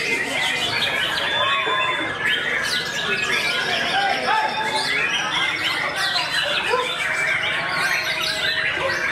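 Many white-rumped shamas singing at once in a songbird contest: a dense, unbroken tangle of overlapping whistles, gliding notes and harsh chatter.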